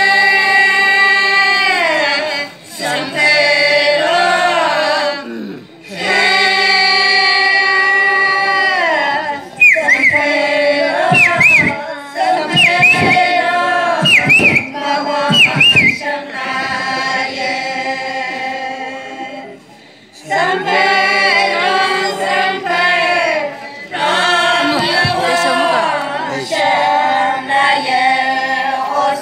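A group of women singing a traditional folk song unaccompanied, in long held notes that slide down at the end of each phrase, with short breaks between phrases. About a third of the way in, several short high calls rise and fall above the singing.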